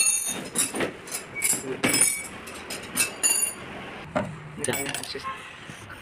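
Metal parts and tools clinking and knocking against a washing machine's frame and base during dismantling: a quick run of sharp clinks with a short metallic ring, thinning out to a few scattered knocks after about three and a half seconds.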